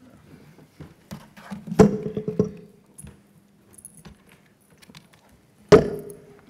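Handling noise of a laptop and its cable on a wooden lectern: small clicks and rattles, with two loud knocks, about two seconds in and near the end, each followed by a brief ringing hum.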